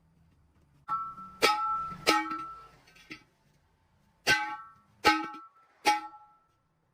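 A hammer striking a steel truck wheel rim about seven times at uneven intervals, each blow a sharp clang that rings on briefly with a bell-like metallic tone.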